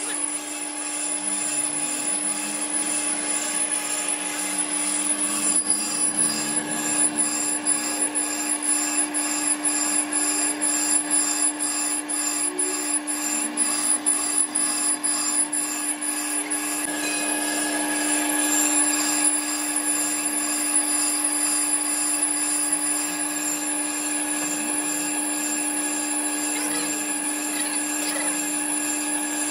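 Brake lathe running with a steady motor hum while its cutting bit scrapes metal from a spinning brake drum, with a rapid regular ticking through the first half.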